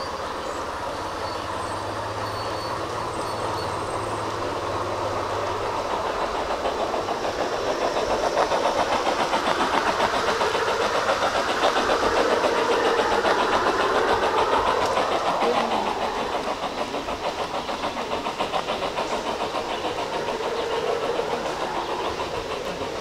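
G scale model train running on its track: the whir of its motor with a fast, even clatter of wheels on the rails, growing louder to a peak about halfway through as the train passes close, then easing off.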